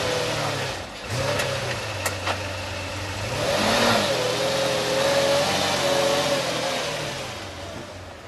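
McLaren F1's V12 engine revving, its pitch rising and falling twice, then fading away near the end.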